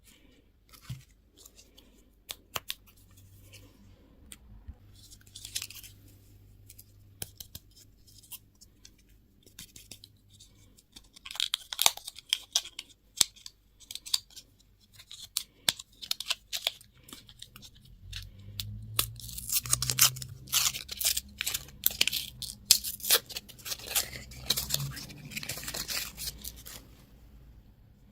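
Plastic candy and toy packaging being handled, crinkled and torn open. Scattered sharp crackles and clicks at first, turning into dense crinkling about eleven seconds in and again over most of the last ten seconds.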